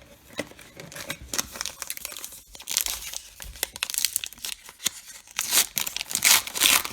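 Baseball card pack wrapper being torn open and crumpled in the hands, an irregular crinkling and tearing that is loudest near the end.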